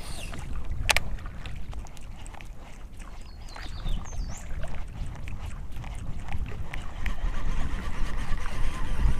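Low wind rumble buffeting the microphone over a small fishing boat, with light tackle and water noises and a sharp click about a second in.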